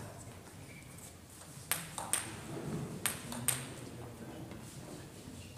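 Table tennis ball struck by rubber-faced paddles and bouncing on the table during a rally: four sharp clicks in two quick pairs.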